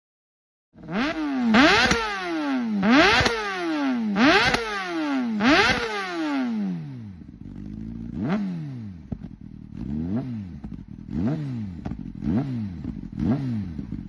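Honda CBR600RR inline-four with an aftermarket exhaust being blipped on the throttle: four big revs, each rising fast and falling away, then a string of shorter, lighter blips about once a second.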